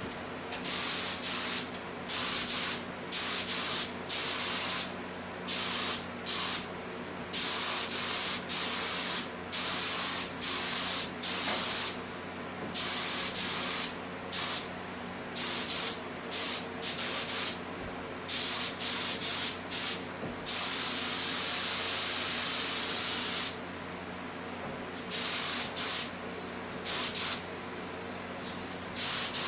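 Gravity-feed air spray gun hissing in many short bursts as the trigger is pulled and released on each pass, with one longer hiss of about three seconds past the middle. A steady low hum runs underneath.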